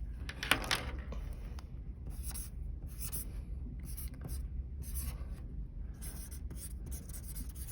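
Hand-writing on paper: short, irregular scratchy strokes as numbers are written out, with a sharper tick about half a second in, over a low steady hum.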